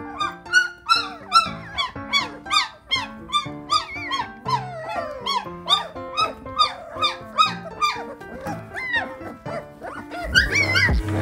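Young Belgian Malinois puppies whining and crying, a quick run of short, high-pitched cries that bend up and down, over background music. Near the end the music grows louder.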